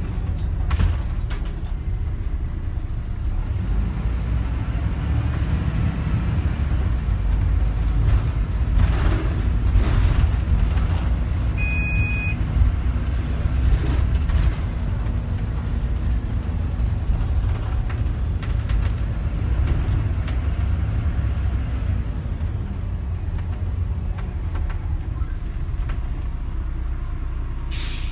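Inside a MAN 14.240 single-deck bus on the move: its six-cylinder diesel engine and drivetrain give a steady low rumble that swells for a couple of seconds about a third of the way in. About twelve seconds in a short electronic beep sounds, and near the end there is a brief hiss.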